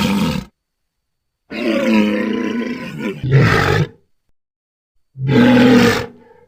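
Dragon roar sound effects: the tail of one roar cuts off half a second in, a long roar follows with a second, louder surge partway through, and a shorter roar comes near the end. Dead silence separates them.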